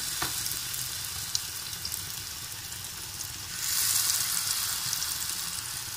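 Rounds of wheat-flour malpua batter deep-frying in hot oil in a pan: a steady high sizzle with a few small pops, swelling louder for about a second in the middle.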